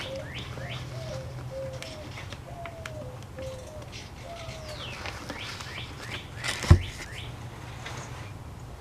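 A songbird singing repeated downward-sliding whistles, with a quicker run of short, lower warbled notes over the first few seconds. A single sharp knock sounds about two-thirds of the way through.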